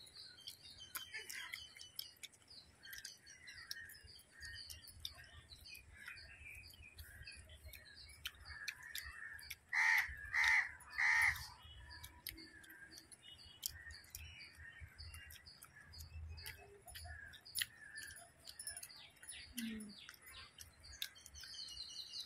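Small birds chirping throughout, with a crow cawing loudly three times about ten seconds in.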